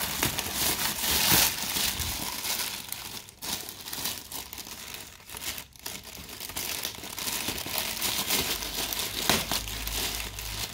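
Thin plastic shipping bag crinkling and rustling as hands pull at it and cut it open at the knotted top, with a couple of short pauses in the handling.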